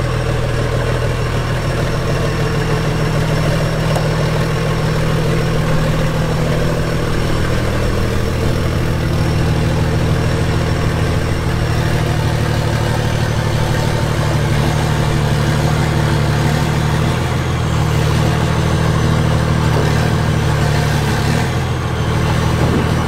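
Excavator's diesel engine running steadily, its note shifting a few times.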